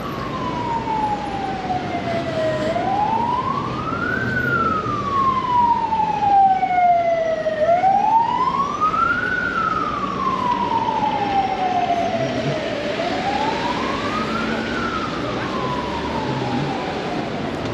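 Emergency vehicle siren wailing over street traffic. Each wail rises quickly and falls back slowly, about every five seconds, and fainter sweeps of a second siren join around the middle.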